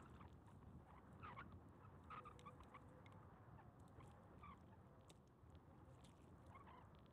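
Near silence: a faint low outdoor rumble, with a few faint short chirps and ticks scattered through it.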